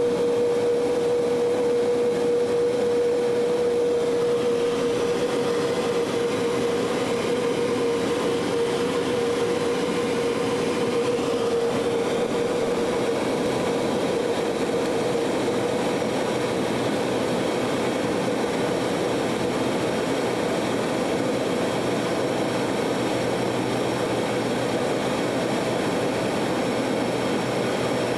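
Fokker 50 twin-turboprop airliner's engines and propellers heard from the cockpit on final approach: a loud, steady drone with a steady whining tone that fades away about halfway through, leaving a lower steady hum.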